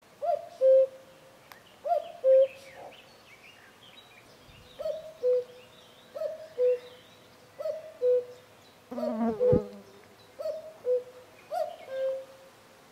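Male common cuckoo calling "cuck-oo": two clear notes, the second lower than the first, repeated eight times about every one and a half seconds. Faint chirps of small birds can be heard between the calls.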